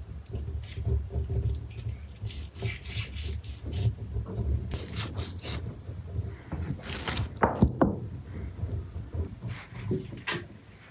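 Irregular rubbing and scraping strokes, with a couple of sharp clicks about seven and a half seconds in.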